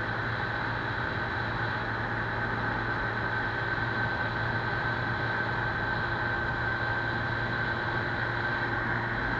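Keeway 100cc motorcycle engine running at a steady, unchanging pitch and level.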